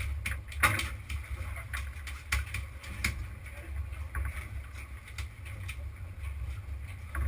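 Sportfishing boat at sea: an unsteady low rumble from wind buffeting the microphone, with scattered irregular knocks and clicks.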